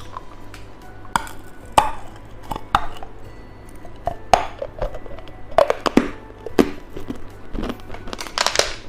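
Close-miked eating of candy: irregular crisp clicks and crunches, coming thicker and louder in the second half.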